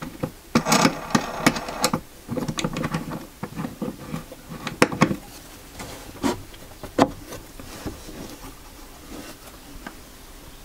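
Wooden parts of a router fence being handled and knocked into position: a quick run of sharp knocks, a stretch of scraping and rubbing, then a few single knocks spread out.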